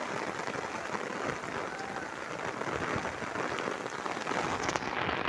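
Rain falling steadily, an even hiss of drops.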